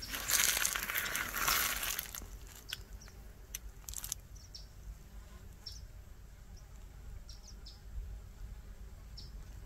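Outdoor ambience: a loud, hissy, rustling noise for the first two seconds, then scattered short high chirps and a few faint clicks over a steady low wind rumble on the microphone.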